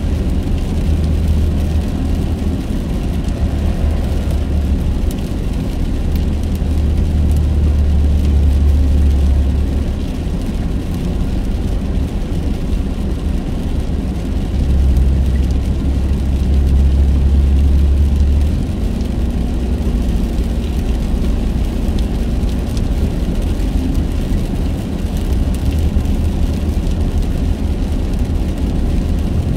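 Car driving at highway speed on wet, slushy pavement, heard from inside the cabin: a steady low rumble of engine and tyre noise, with a hiss of tyres on the wet road. The rumble swells louder twice, for a few seconds each time.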